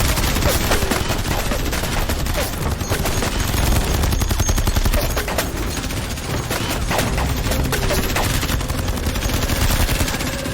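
Heavy, rapid gunfire: many shots overlapping in a continuous volley with no break.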